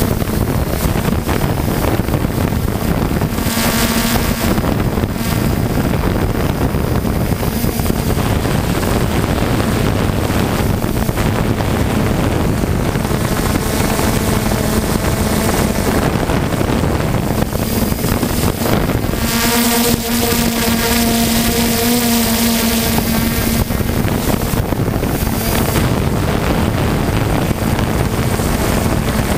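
3DR Solo quadcopter's motors and propellers buzzing steadily in flight, heard from the camera it carries, with wind rushing over the microphone. The hum grows stronger and richer briefly about four seconds in, and again for a few seconds near the twenty-second mark.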